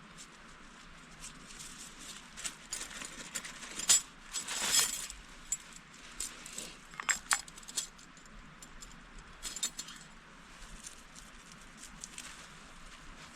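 Scattered light clicks, clinks and rustles of objects being handled. The loudest is a sharp click about four seconds in, followed by a brief rustle, and a few more clicks come about three seconds later.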